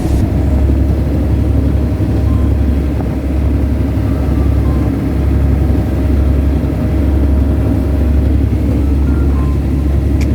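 Fishing boat's engine running steadily, a loud, even low drone.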